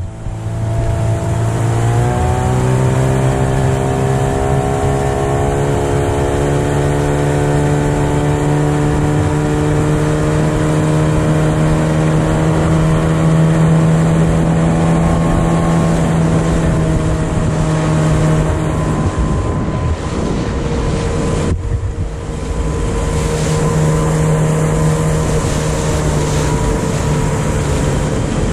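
Outboard motor of an inflatable Zodiac boat running under way. Its pitch rises over the first few seconds as it speeds up, then holds steady. About three quarters through, the sound breaks off for an instant and picks up again.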